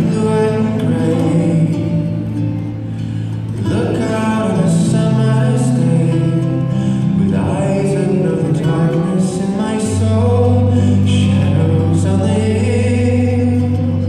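A slow song with singing and guitar played over an ice arena's sound system, for a skating program.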